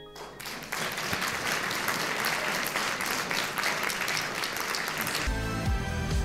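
Audience applauding, a dense even clapping. About five seconds in the applause gives way to music with a steady low beat.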